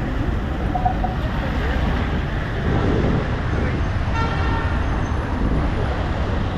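Steady city street traffic noise, with a vehicle horn sounding briefly about four seconds in.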